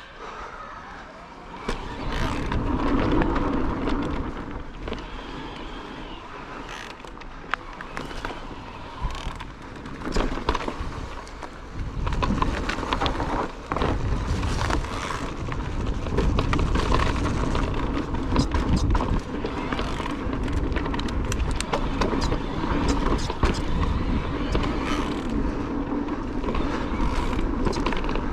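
Cube Stereo Hybrid electric mountain bike ridden down a bikepark trail: wind rumble on the microphone and tyre noise over dirt, with frequent short knocks and clicks as the bike hits bumps. The rumble gets heavier about two seconds in and again from about twelve seconds as the pace picks up.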